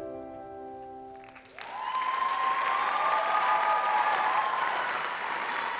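The song's final held chord fades away, and about a second and a half in an audience breaks into applause.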